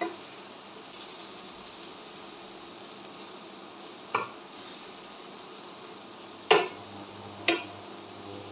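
A steel spatula clinks against a stainless steel pan while fenugreek leaves and wheat-dough pieces are turned over: four sharp clinks, the loudest about six and a half seconds in. Under them runs a faint, steady sizzle from the pan.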